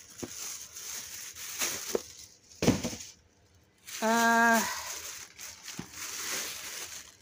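Thin plastic grocery bags rustling and crinkling as items are handled, with a single thump a little before three seconds in. After a short quiet pause, a brief steady hum of a voice, then more rustling.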